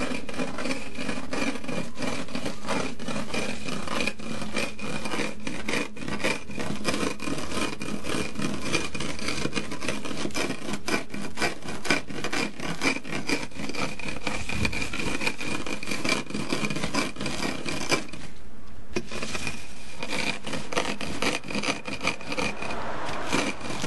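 Fried rice grains crushed under a bottle rolled back and forth over them on a plastic sheet: a continuous gritty rasping and crackling, with a brief pause about three-quarters through. This is toasted rice being ground into coarse rice powder (khao khua).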